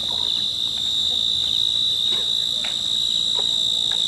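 Chorus of night insects trilling steadily in one high, unbroken tone, with a few faint scattered knocks or sounds of movement beneath it.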